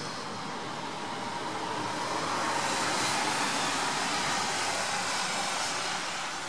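Steady hiss of light rain falling outdoors, swelling louder for a few seconds in the middle.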